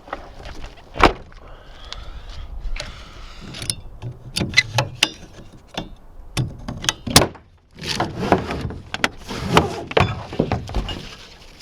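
A series of irregular knocks and clunks, a dozen or more sharp hits of hard objects over several seconds, with rustling between them.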